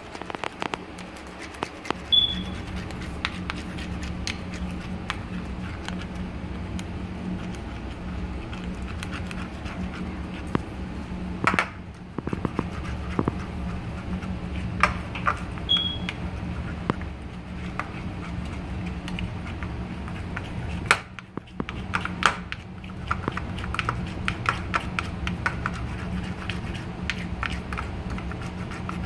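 A spoon stirring gel-and-salt slime in a plastic bowl, clicking and scraping against the bowl over and over, over a steady low hum. Two brief high pings come about two seconds in and again past the middle.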